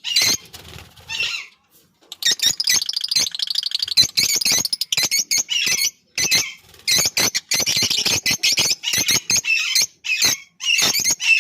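Lovebirds chattering: rapid runs of shrill chirps and squawks in bursts of a second or more, with brief pauses between them.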